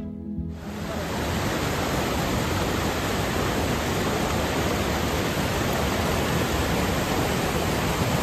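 Steady rush of falling water from the Jogini waterfall, an even noise with no pattern that cuts in about half a second in.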